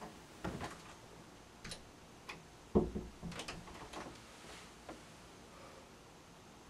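A few soft, irregular knocks and clicks, the loudest a dull thud about three seconds in.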